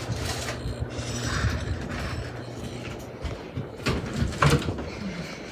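Hampton Bay Carriage House ceiling fan running with a steady low hum and the rush of air from its blades. Two sharp creaking clicks come about four seconds in.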